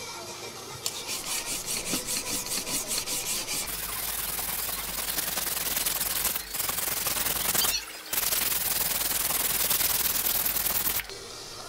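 Rusty yanagiba (single-bevel sashimi knife) blade being pushed back and forth on a wet whetstone to sharpen its front bevel. It begins as a rhythmic scraping at about four strokes a second, then turns into a denser, steadier scraping with two short breaks, and stops suddenly near the end.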